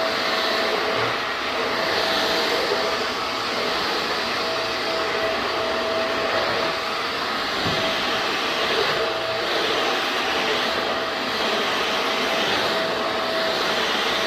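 Vacuum cleaner running steadily, a loud rushing noise with a steady whine, its higher hiss rising and easing now and then.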